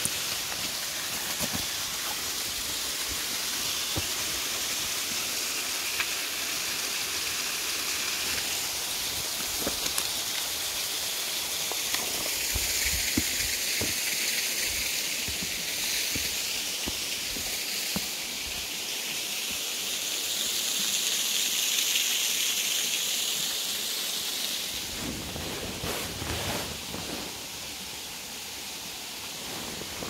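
A waterfall's steady rush of falling water, a constant hiss that swells a little in the middle and shifts in tone about five seconds before the end.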